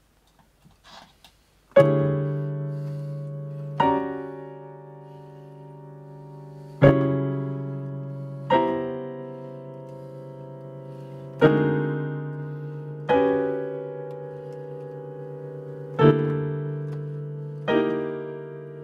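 Casio digital piano played slowly: eight full chords struck in pairs about two seconds apart, each held and left to fade before the next pair. A few faint clicks come just before the first chord.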